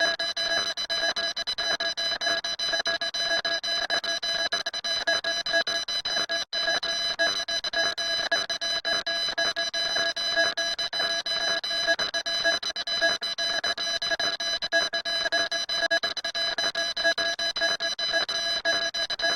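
Electronic alarm-like tone at several fixed pitches, pulsing rapidly and unbroken except for a brief cut-out about six and a half seconds in.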